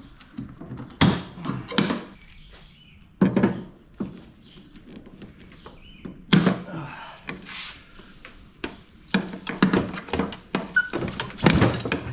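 Irregular metallic clunks and knocks as copper tubing is worked loose and pulled out of a scrapped air conditioner, a few separate knocks and then a quicker run of them near the end.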